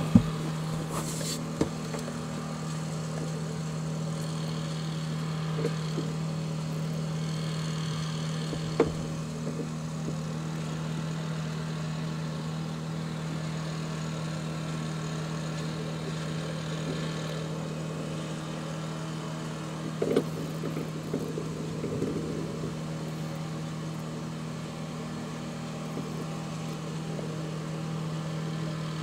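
Engine of a Norman 20 Conquest cabin cruiser idling steadily, with a few light knocks scattered through.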